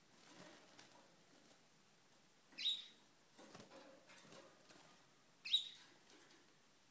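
Pet canaries in a wire cage: two short, sharp chirps about three seconds apart, with soft wing fluttering and rustling between them.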